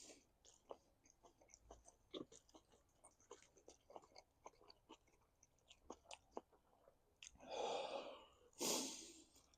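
A person chewing a mouthful of grilled bratwurst in a bun, with many small wet clicks and smacks of the mouth. Near the end come two breathy exhales.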